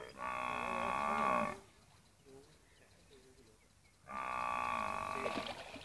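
Cattle lowing: two long moos, each about a second and a half, the second coming about four seconds in.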